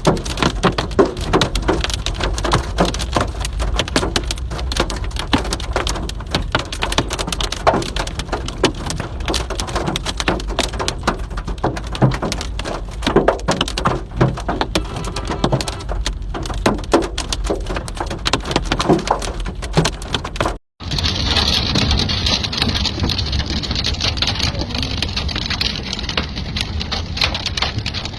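Hailstones pelting down, a dense, irregular patter of sharp hits. About twenty seconds in, after a brief cut, it gives way to a steadier, hissing downpour.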